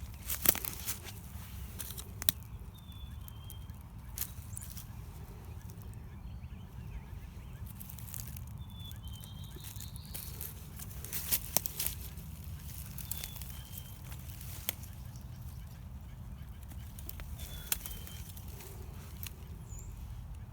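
Scattered snaps and crackles, like twigs and leaf litter being stepped on or handled, over a steady low rumble. A bird's short, high two-note call, falling in pitch, comes faintly every few seconds.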